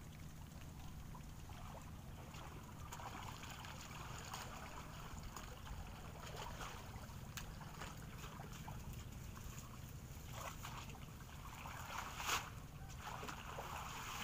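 Water splashing and sloshing over a steady low rumble, with scattered small clicks and one louder sharp sound near the end.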